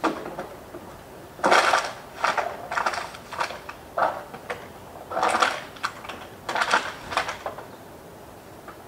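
A series of short, irregular clattering knocks, about a dozen in six seconds, over a steady background hum.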